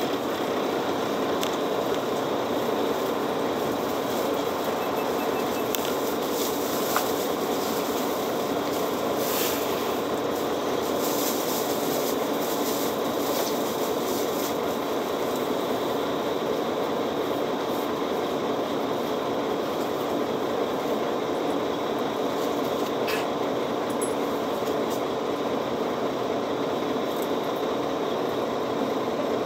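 Steady mechanical hum inside a city bus's passenger cabin, with a few faint clicks and rattles.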